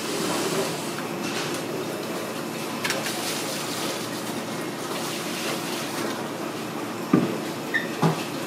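Steady fish-market background noise: a low hum under a wash of noise like running water, with a few sharp knocks near the end.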